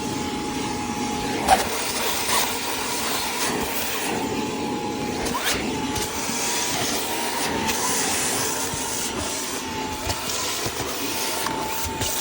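Cordless Hoover spot cleaner running, its suction motor giving a steady whine as the tool is worked over a fabric car seat, with a few short sharp clicks along the way.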